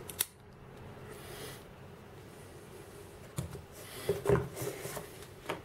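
Soft handling noises of a vape kit and its cardboard box: a small click just after the start, then light knocks and rubbing against the cardboard insert from about three and a half seconds in, as items are lifted out of the box.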